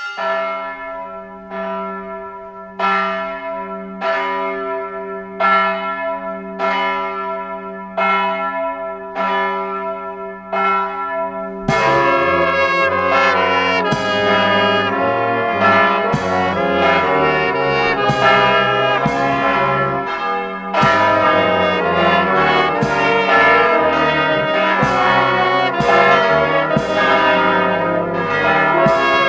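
Church bell tolling at a steady pace, a stroke roughly every second and a bit, each ringing out. About twelve seconds in the sound abruptly becomes louder and fuller, with struck ringing strokes continuing through it.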